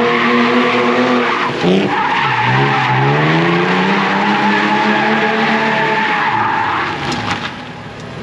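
BMW E46, with a welded differential and a short 3.45 final drive, drifting in circles: the rear tyres squeal and skid steadily while the engine revs high. About a second and a half in the engine revs drop sharply and then climb again. Near the end the engine and tyres fade as the car slows.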